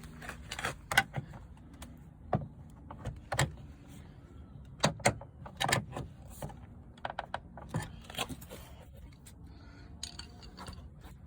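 Irregular sharp clicks and knocks of a large screwdriver being worked against a car door's plastic door card and its clips.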